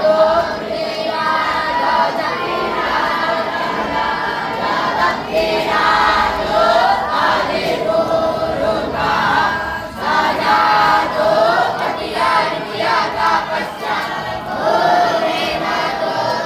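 Many voices singing together in a devotional group chant, the melody rising and falling over a steady crowd of singers.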